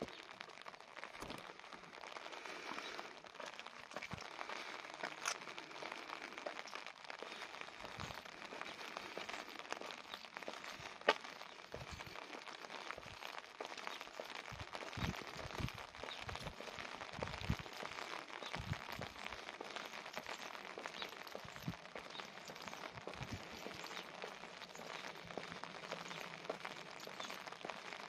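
Light rain falling steadily, a soft even hiss dotted with small ticks of drops, with one sharp click about eleven seconds in. Dull low thumps come and go through the middle stretch.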